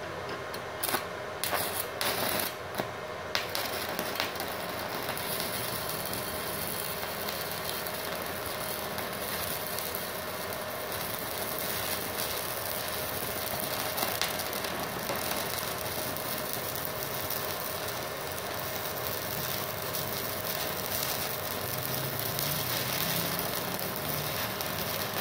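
Stick (MMA) welding arc from a 2.6 mm RD electrode on a small MultiPro inverter welder set at about 40–50 A. A few sharp cracks sound as the arc is struck in the first three seconds or so, then a steady crackling sizzle runs while the bead is laid. The sound cuts off suddenly at the end, when the 900 W household supply's breaker trips under the load.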